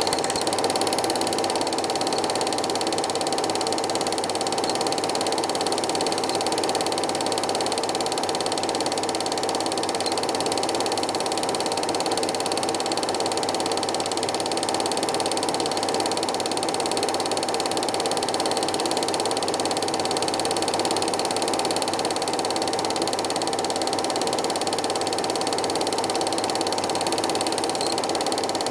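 Home-movie film projector running: a steady, rapid mechanical clatter of the film advance with a constant motor whine.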